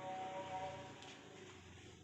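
Faint background music with held notes, fading away toward the end.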